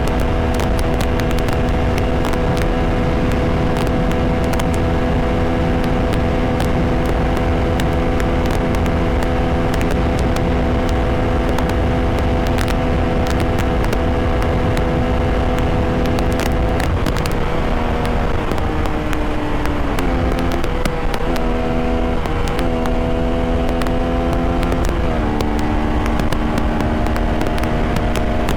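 Bajaj Pulsar RS200 single-cylinder engine with a K&N air filter, running at a steady cruise with wind rushing over the microphone. About two-thirds of the way through, its pitch drops and rises several times with throttle changes, then settles steady again.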